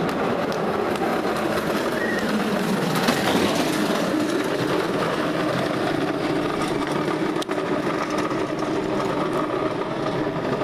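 Engineless soapbox carts coasting down an asphalt street, their hard wheels making a steady rattling rumble.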